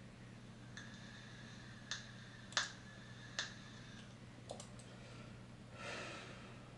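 Computer mouse clicking: a handful of sharp clicks, the loudest three under a second apart in the middle and a few lighter ones after, over a low steady hum. A faint steady high tone sounds under the first clicks, and a short breathy rush comes near the end.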